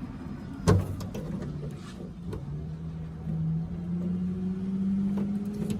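Light clicks and taps of latch parts being handled and fitted, with a sharper click about a second in. Under them is a low steady hum that grows a little louder and higher in pitch over the second half.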